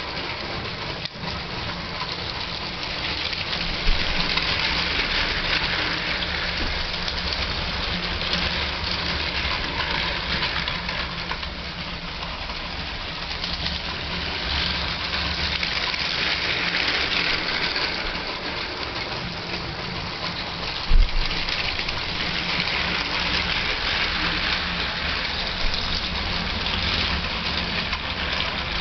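Two Lego toy trains running on plastic track: a steady whirring and rattling from the small electric motors and wheels on the rails. A low thump twice.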